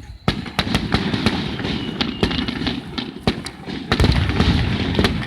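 Aerial fireworks bursting: a quick series of sharp bangs and crackles, with the heaviest, deepest boom about four seconds in.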